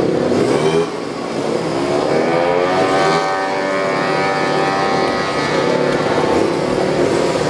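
A motorcycle engine running nearby, rising steadily in pitch about a second and a half in, holding high for a couple of seconds, then falling away about six seconds in.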